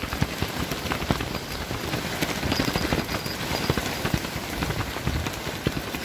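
Strong, gusty wind buffeting the microphone: a loud, dense crackling noise with low thumps from the gusts.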